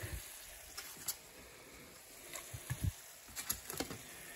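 Raw bratwursts laid by hand into a cold nonstick frying pan, making a few soft thuds and small knocks, the strongest about three seconds in. Under them runs a faint steady hiss from peppers and tomatoes sautéing in olive oil in the next pan.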